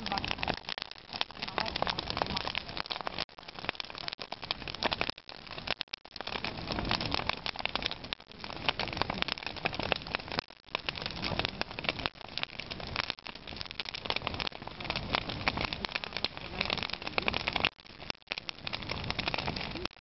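A large open fire burning, its flames and dry grass crackling densely and without a break.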